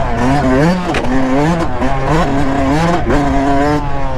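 Yamaha YZ125 two-stroke dirt bike engine under load as the throttle is opened and closed again and again, its pitch rising and falling several times over the bumps.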